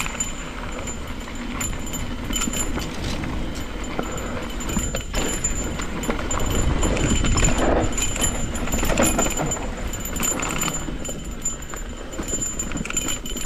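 Cannondale Scalpel full-suspension mountain bike rolling down a rough dirt trail: the bike rattles and clatters over rocks and roots, with the tyres rumbling and wind noise on the microphone.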